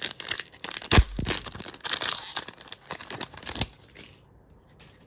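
Foil wrapper of a Topps Chrome trading-card pack being ripped open and crinkled, a dense crackle of sharp clicks with one louder knock about a second in; it dies away a little before the end.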